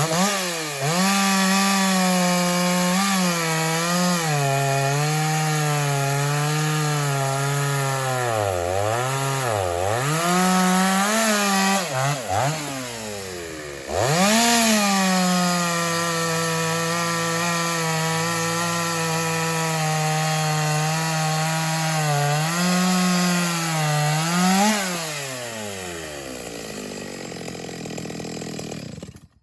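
Ported Stihl 024 two-stroke chainsaw running at full throttle through cuts in wood, its pitch repeatedly sagging under load and picking back up. Near the end the throttle is let off and the engine drops back toward idle before the sound cuts off.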